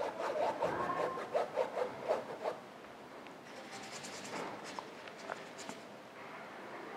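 Paintbrush rubbing acrylic paint onto a canvas in short, scratchy strokes, stronger in the first couple of seconds and fainter after.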